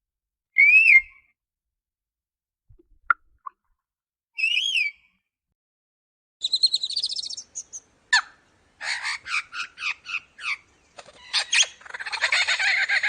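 Lyrebird singing: two separate whistled notes that rise and fall, a couple of sharp chips, then rapid trills and quick runs of repeated notes that grow dense and continuous near the end.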